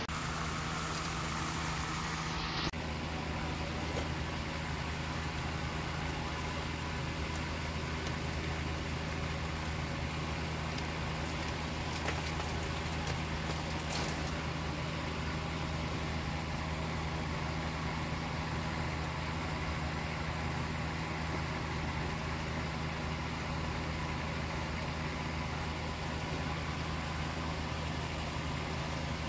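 Steady low mechanical hum with a constant pitch and no change in level. A brighter hiss stops abruptly about three seconds in.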